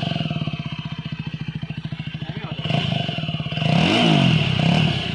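Yezdi Scrambler's single-cylinder engine running with both exhaust silencers removed, an open, evenly pulsing exhaust note at idle. About three and a half seconds in it is blipped once, the pitch rising and falling back before settling to idle.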